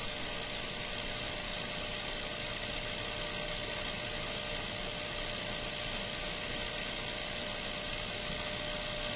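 Cheap ultrasonic jewelry cleaner running its timed cleaning cycle, a steady, even hum and hiss with a faint constant tone.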